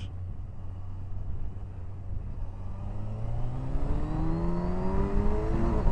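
Kawasaki Versys 1000's inline-four engine running steadily, then rising in pitch from about two and a half seconds in as the bike accelerates.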